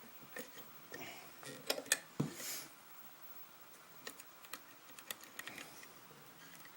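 Scattered light clicks and taps of a lock and its lock-picking tools being handled, with a cluster of clicks and a soft knock about two seconds in and sparser clicks later.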